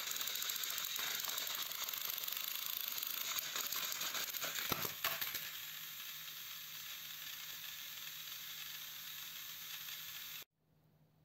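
Small electric motors and plastic gears of toy trains whirring steadily as two engines push against each other on plastic track, then a clatter of knocks as they fall onto the floor a little under five seconds in. The whirring carries on softer after the fall and stops suddenly near the end.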